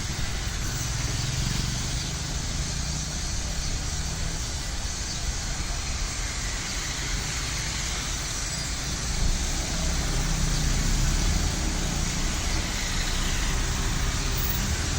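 Mercedes-Benz OF-1722M bus running, a steady mix of engine and road noise with a strong low rumble. It grows louder about two thirds of the way through.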